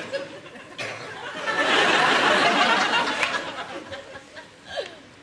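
Studio audience laughing, the laughter swelling about a second and a half in and fading away over the next two seconds.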